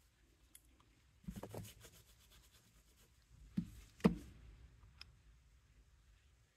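Small handling noises of nail-stamping tools on a tabletop: a short scratchy rub about a second in, then two knocks half a second apart, the second the loudest, and a light click a second later.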